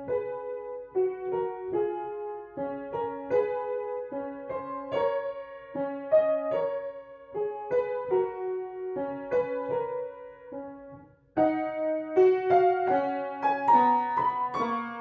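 Upright piano playing the second movement of a sonatina, a melody of notes struck one after another. The music breaks off briefly about eleven seconds in, then resumes somewhat louder.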